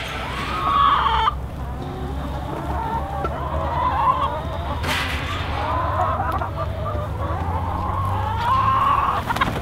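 A flock of chickens clucking, many short calls overlapping.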